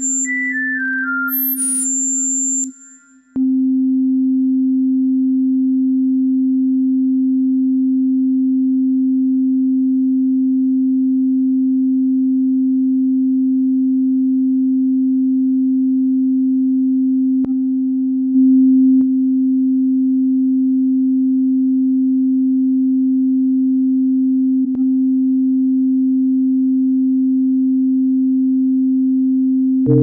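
Synthesized sine-wave tones in a 5-TET microtonal track. A few quick descending high beeps sound over a low steady tone, there is a brief break about three seconds in, and then a single low pure sine tone is held unchanged, like a hearing-test tone.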